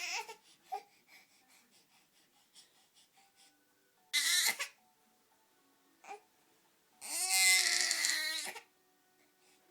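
A tired 7-month-old baby fussing: faint little mouth clicks, a short cry about four seconds in, then a longer wavering whiny cry near the end, the loudest part.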